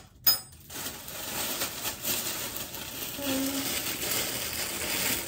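A single sharp click with a brief high ring just after the start, then steady faint rustling and handling noise.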